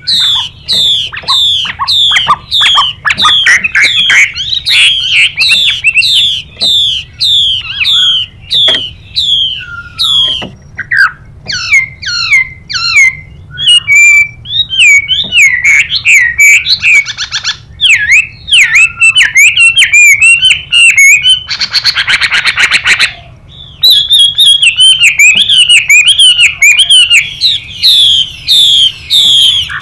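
Chinese hwamei (Garrulax canorus) singing: fast runs of repeated falling whistled notes, changing phrase every few seconds. A harsh hissing call about two-thirds of the way through is the female's 'xùy' call.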